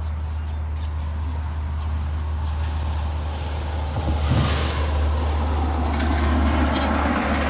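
Steady low rumble of road traffic, with a rushing noise that swells about four seconds in and stays loud.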